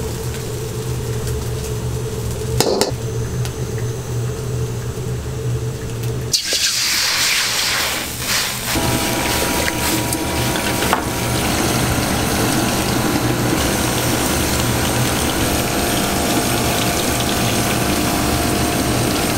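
Gas wok burner running with a steady low hum; about six seconds in, water hits the hot wok with a sudden hiss that fades, and then the water churns and bubbles in the wok over the flame with a steady rushing sound.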